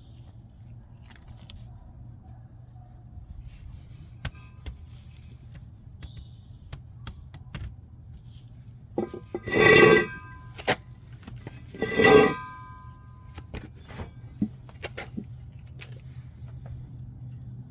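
Metal tools and axle parts clinking and tapping during work on a Jeep CJ5 rear axle, with two loud half-second metallic rattles with a ringing edge a little past the middle, about two seconds apart.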